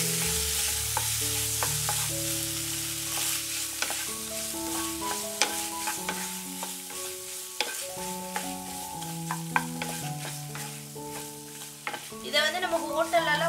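Wooden spatula stirring and tossing boiled macaroni in masala in a hot non-stick pan, with a light sizzle of frying and scattered clicks and scrapes of the spatula against the pan.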